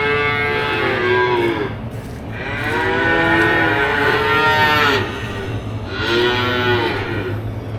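Hungry calves bawling: several long, drawn-out calls one after another, some overlapping, over a steady low hum. The calves are calling to be fed.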